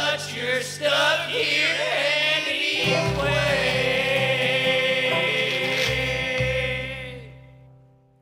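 Bluegrass band ending a song: voices sing and then hold a long final note over the instruments. The whole sound fades out over the last second or so.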